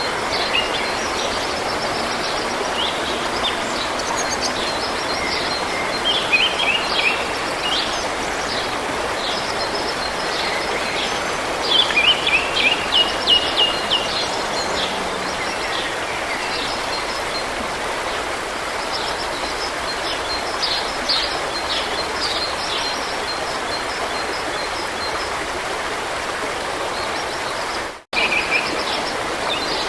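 A stream running steadily with songbirds singing over it in short chirps and phrases, loudest in a quick series of repeated notes about halfway through. The sound drops out for an instant near the end.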